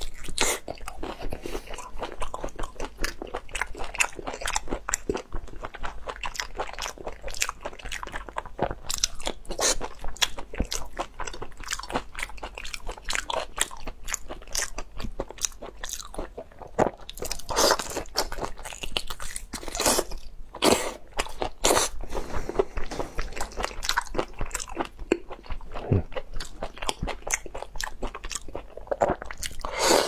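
Close-up biting and chewing of large shell-on tiger prawns, with many sharp crunches and cracks of shell throughout.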